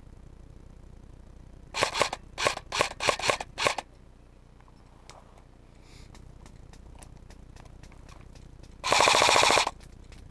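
Airsoft electric guns firing on full auto: a quick run of about six short bursts around two seconds in, then one longer, louder burst of rapid shots lasting under a second near the end.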